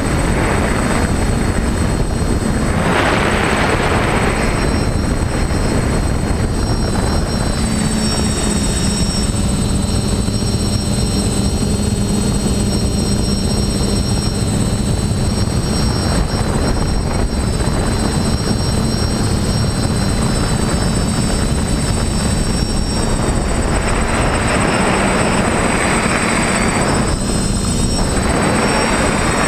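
TBS Discovery quadcopter's electric motors and propellers running in flight, heard from its onboard GoPro: a steady motor whine over a thick rushing noise. The rush swells about three seconds in and again for a few seconds near the end.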